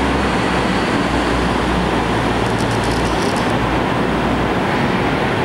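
New Flyer DE60LF articulated diesel-electric hybrid bus pulling away into the tunnel, its low engine hum dropping off about three seconds in. Throughout there is a steady rushing noise that echoes in the tunnel.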